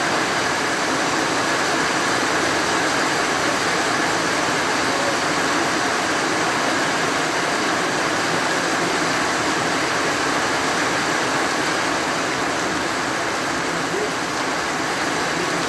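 Steady rain falling on trees and grass, an even, unbroken hiss.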